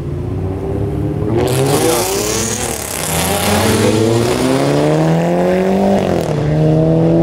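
A car's engine revving hard as it accelerates away, the pitch climbing and dropping back at gear changes about three and six seconds in, then climbing again. Loud exhaust noise comes with it.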